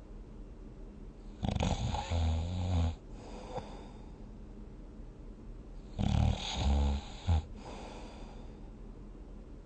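A person snoring deeply: two loud snores about four and a half seconds apart, each a breathy rush that turns into a low buzzing vibration.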